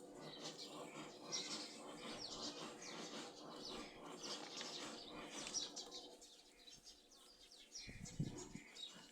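Faint chirping of small birds, many short repeated chirps, with a low dull thud near the end.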